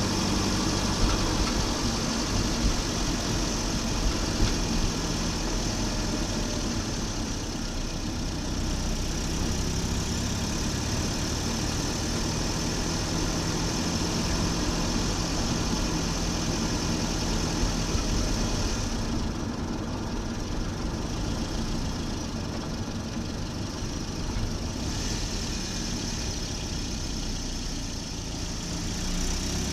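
Volvo 940 Turbo's B230FT turbocharged four-cylinder engine running steadily, with a few sharp ticks in the first few seconds.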